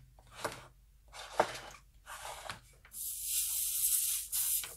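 A few light clicks and taps of parts and tools being handled on a workbench, then a steady high hiss lasting about a second and a half from about three seconds in, cutting off suddenly.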